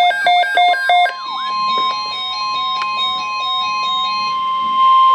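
NOAA Weather Radio 1050 Hz warning alarm tone from a weather radio receiver: one steady, piercing tone that starts about a second in and cuts off suddenly near the end. It is overlaid with rapid electronic beeps at the start and a stepping electronic melody.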